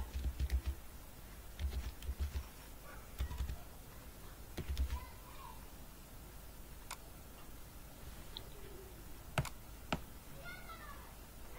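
Faint computer keyboard typing and mouse clicks: sharp clicks come close together near the start, then sparser, single clicks every second or two.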